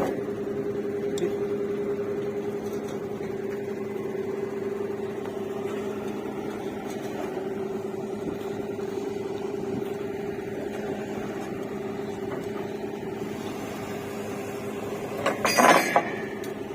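DTH borewell drilling rig running with a steady, even-pitched drone. Near the end come a few loud metallic clanks.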